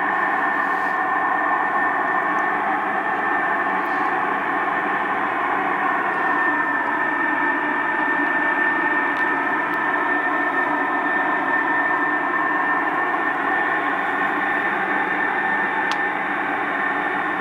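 An unexplained steady drone in the night sky: several held tones layered over a hiss, with one high whistle-like tone standing out above the rest, unchanging throughout.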